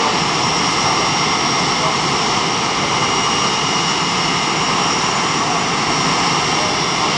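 Jet engines of the Blue Angels' F/A-18 Hornets running steadily while the jets stand in line on the ramp: an even roar with steady high-pitched whines on top.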